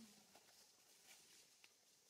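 Near silence: faint steady hiss with a few soft clicks.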